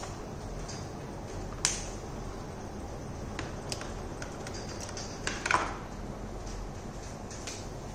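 A few sharp clicks and taps over steady room noise and a faint low hum: one about a second and a half in and a louder cluster of clicks about five and a half seconds in.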